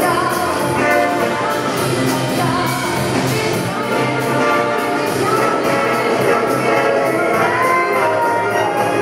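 Jazz big band playing: brass and saxophones under a female vocalist singing, with a steady cymbal beat from the drum kit.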